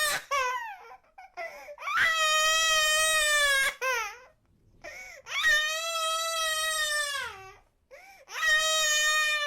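A young cartoon girl's voice crying: long, high-pitched wails of about two seconds each, broken by short sobbing catches of breath between them.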